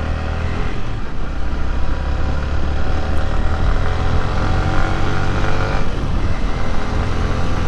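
Yamaha R15 V3 motorcycle's single-cylinder engine running while riding, its pitch rising and falling with the throttle, under heavy wind rumble on the rider's microphone.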